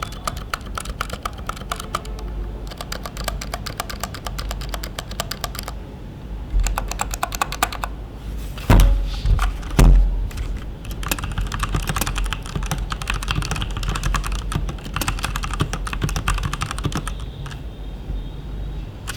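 Typing on an E-Dra EK361W 60% mechanical keyboard with Outemu switches: rapid runs of key clicks broken by short pauses. A little after the middle come two heavy thumps about a second apart.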